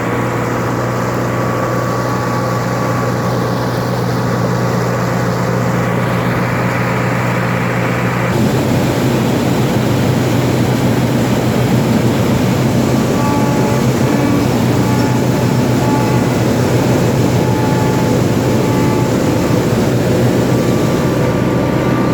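Case 1640 combine's diesel engine and threshing machinery running steadily under load in wheat. About eight seconds in, the sound shifts abruptly to a louder, rougher mix.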